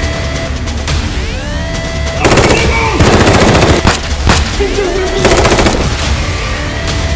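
Electronic trailer music with a steady low pulse and gliding tones. It is broken by bursts of very rapid clicking like machine-gun fire, from about two to four seconds in and again around five and a half seconds.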